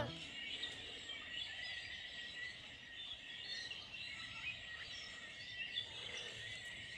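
Faint outdoor field ambience: scattered bird chirps over a steady high-pitched drone, fading out at the very end.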